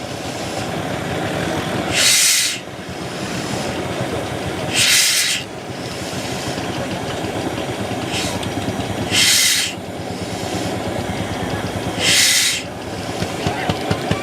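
Lanz Bulldog single-cylinder hot-bulb tractor engine and threshing machine running steadily, with four loud hissing rushes a few seconds apart.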